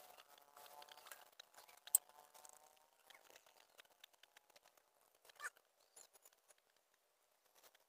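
Faint scattered crackles and ticks from squid grilling over a charcoal fire as it is basted with a brush. There is one sharp click about two seconds in and a brief louder rustle about five and a half seconds in.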